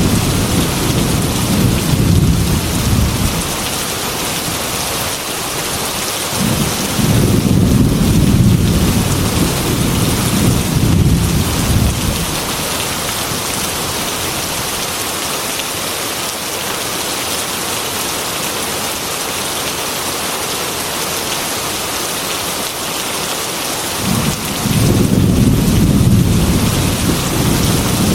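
Heavy rain pattering steadily on a glass window, with thunder rumbling low several times: once at the start, a long roll from about a quarter of the way in, and again near the end.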